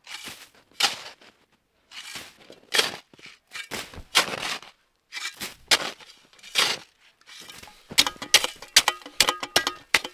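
Snow shovel scooping and packing snow: a series of crunchy scrapes about once a second, then a quicker run of sharp taps near the end.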